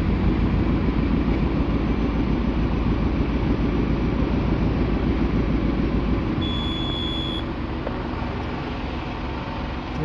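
A steady low motor rumble runs throughout and eases slightly a little past halfway. About six and a half seconds in, a single high electronic beep sounds for about a second, from the Georg Fischer electrofusion welding machine.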